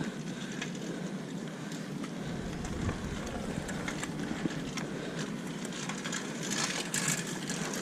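Mountain bike rolling over a rough dirt and gravel trail: steady tyre crunch with the frame and parts rattling, busiest near the end.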